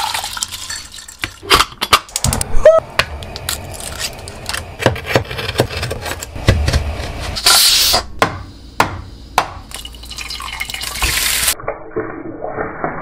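A quick run of kitchen sounds: rice grains pouring into a metal pot, sharp knocks and clicks of a knife on a wooden board and of utensils, and short stretches of hiss. Near the end the sound turns duller, with oil and butter in a frying pan.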